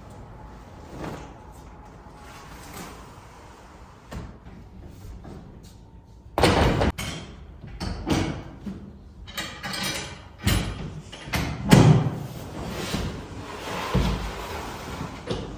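A run of knocks, thumps and a slam-like bang, like something being handled and set down, starting about six seconds in after a quiet stretch.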